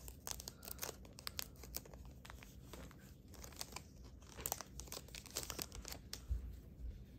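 Glossy trading-card packets crinkling and rustling as they are cut open with small scissors and the cards pulled out: a dense run of small crackles that thins out about six seconds in.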